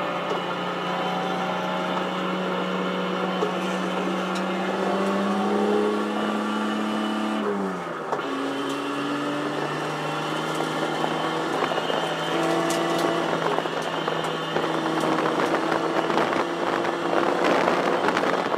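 1973 Datsun 240Z race car's 2.4-litre straight-six heard from inside the cockpit at racing speed. The engine note holds high and climbs slowly, drops sharply about seven and a half seconds in, then rises steadily again. Road and wind noise grow louder near the end.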